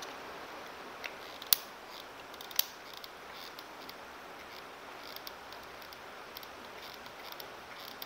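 Sharp clicks while hot-gluing a speaker into a plastic case: a weaker click about a second in, then two louder ones about a second apart, over a faint steady hiss.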